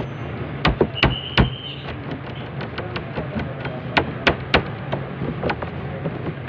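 Hands rolling and pressing ensaymada dough on a metal worktable: irregular sharp knocks and taps, several a second at times, over a steady low hum. A short high tone sounds about a second in.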